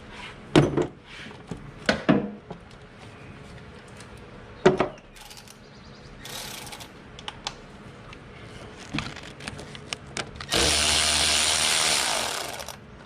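A few sharp clinks of hand tools on metal, then a cordless electric ratchet running for about two seconds near the end, spinning a manifold bolt.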